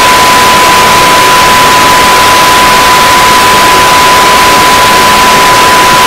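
Loud, unchanging hiss-like noise from many sound effects layered at once, with a steady high beep tone running unbroken through it.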